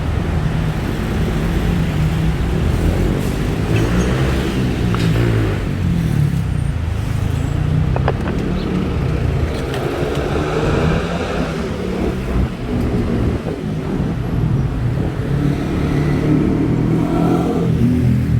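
Busy road traffic: motor vehicles running and passing close by, a steady loud drone of engines and tyres with some accelerating.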